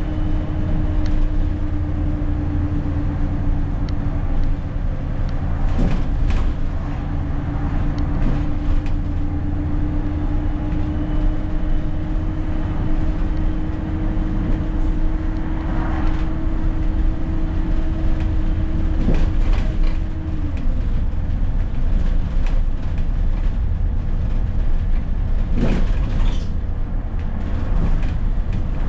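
Alexander Dennis Enviro400 double-decker bus under way, heard from on board: a steady engine and road drone with a deep rumble. A held whine drops slightly and stops about twenty seconds in, and a few knocks and rattles come through.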